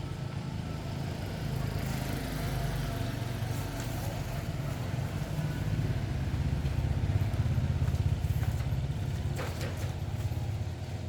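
A motor vehicle's engine running with a steady low rumble, growing louder a little past the middle and easing off near the end.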